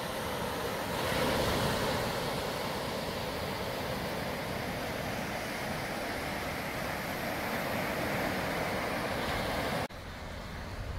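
Surf breaking and washing up on a sandy beach: a steady rush of waves that swells about a second in. Near the end it drops off suddenly to a quieter, lower rush.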